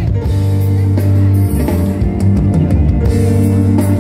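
Live band music through a large outdoor PA: a drum kit and bass holding steady low notes, with guitar on top.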